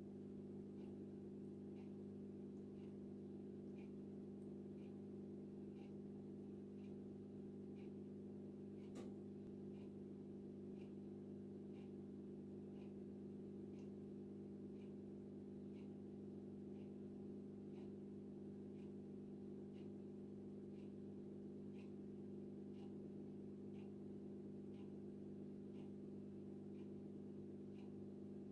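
Steady low hum of running aquarium equipment, with faint regular ticks throughout and one sharp click about nine seconds in.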